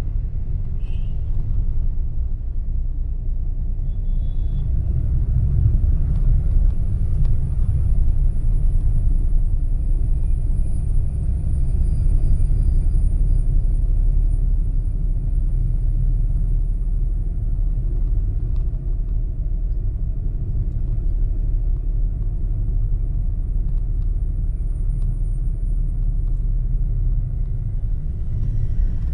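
Steady low rumble of a moving vehicle: road and engine noise heard while travelling.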